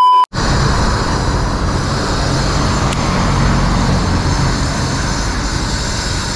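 A short electronic beep, then a motor vehicle's engine running steadily with traffic noise.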